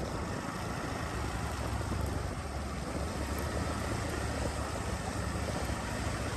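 Steady wind and road noise from riding a motorbike at speed, a constant rush with a low rumble beneath it.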